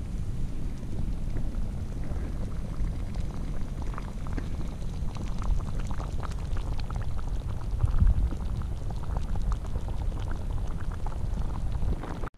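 Stew boiling hard in a stainless-steel Zebra camping pot over an alcohol stove: a steady bubbling with small pops and crackles that grow busier from about four seconds in, over a low rumble. There is a single louder low thump about eight seconds in.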